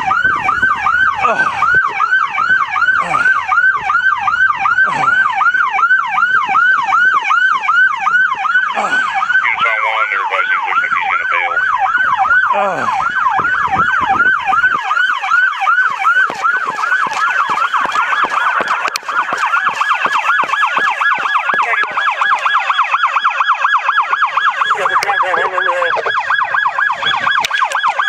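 Police car siren on a fast yelp, cycling about three times a second, then switching to a faster cycle about halfway through.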